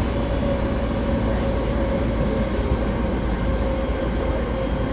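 Interior running sound of a JR East 209 series commuter car fitted with MT68 traction motors and GTO-VVVF inverter control: a steady rumble from the wheels and car body, with one held tone that does not rise or fall.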